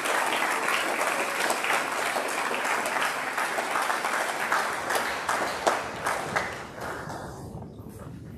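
Large audience applauding, many hands clapping at once. The clapping thins out and dies away about seven seconds in, leaving a few scattered knocks.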